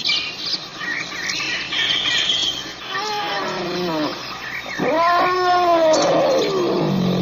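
African elephant calls: two drawn-out calls that rise and then fall in pitch, the second louder and longer, after some short higher-pitched squeaks.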